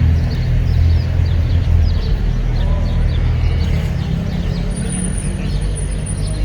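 A steady low engine rumble, with small birds chirping over it.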